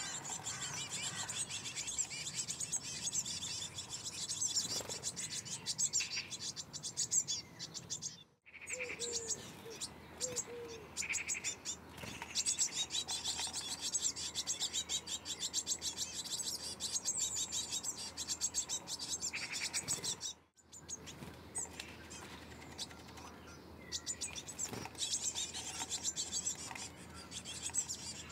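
Blue tits at a nest box at feeding time: dense, rapid, high-pitched chirping, broken twice by brief silent gaps.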